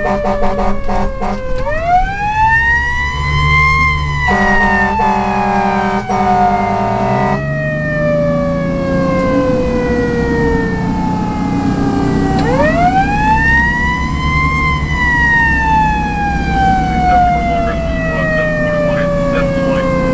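Federal Q2B mechanical siren on a 1990 Seagrave fire engine, winding up and coasting down twice, each wail rising for about two seconds and then dropping slowly. Air horn blasts sound at the start and again from about four to seven seconds in. Under them, the truck's Detroit Diesel 6V92 engine climbs in pitch as it accelerates.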